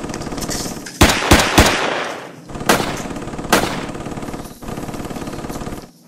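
Gunfire sound effects: a quick burst of three shots about a second in, then two single shots, each with a long echoing tail, over a steady background drone.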